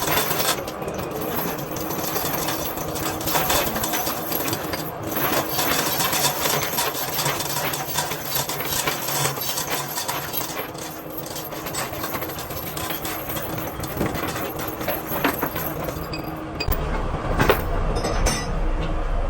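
Workshop machinery noise: a steady, rapid mechanical clatter of small knocks, with a low rumble joining near the end.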